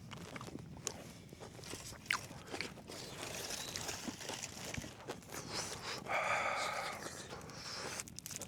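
Scattered small clicks, crunches and rustles, with a louder rustling hiss about six seconds in.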